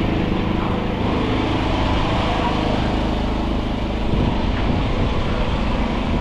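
Steady low drone of a river cruise boat's engine running.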